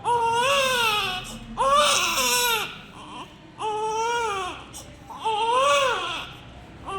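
Newborn baby crying: four wails in a row, each about a second long, rising then falling in pitch, with short breaths between.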